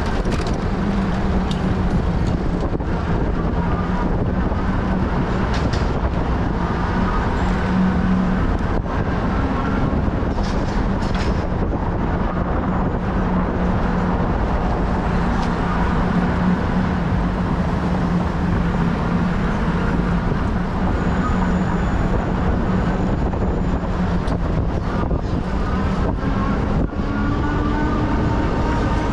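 Steady road and vehicle noise on the move, with a low, even hum underneath and a few faint clicks.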